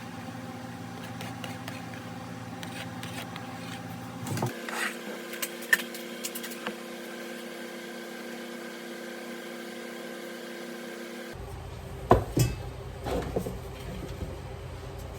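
A steady mechanical hum with a few light knocks and clatters. The hum changes abruptly about four and a half seconds in and again about eleven seconds in.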